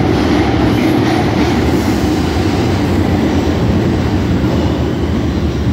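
New York City Subway train of R142-series cars pulling out of the station into the tunnel: a steady, loud, low rumble of the train on the rails that eases only slightly as it goes.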